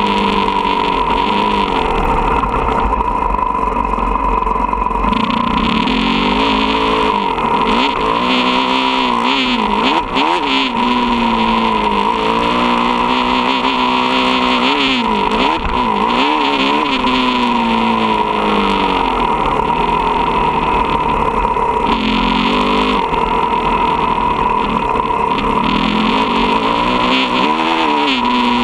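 Motocross dirt bike engine heard from on the bike, running hard and rising and falling in pitch with the throttle as it is ridden around the dirt track.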